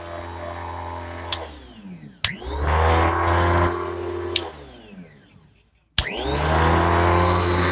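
Bissell Lift-Off upright vacuum cleaner motor shutting off with a click and winding down, then starting again with a click and spinning back up to a high whine. This happens twice: the second time it winds down almost to silence before it restarts.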